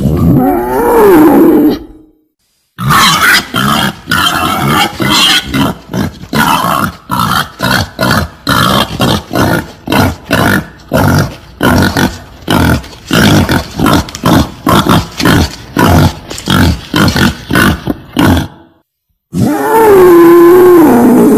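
Female wild boar calling: a short squeal, then a long run of quick grunts at about two a second, then near the end a drawn-out squeal that rises and falls in pitch.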